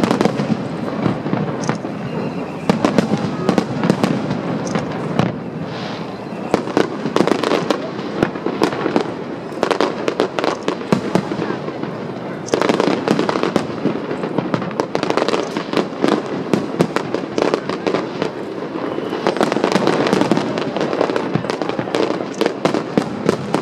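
Aerial fireworks display: a continuous barrage of bangs and crackling bursts, growing denser and louder about halfway through and again near the end.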